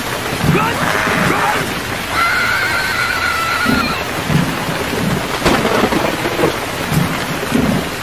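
Steady rain-like hiss with a low rumble underneath. A wavering high-pitched animal call about two seconds long begins a couple of seconds in.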